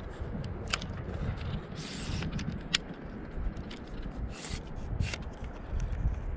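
Trekking poles handled close to the microphone as they are adjusted: a few sharp clicks from the lever-lock clamps and short scraping rubs of the shafts and grips.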